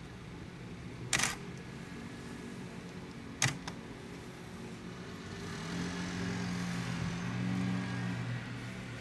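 Two sharp clicks, a little over two seconds apart, over a low background hiss; then a low steady hum rises from about halfway through and fades near the end.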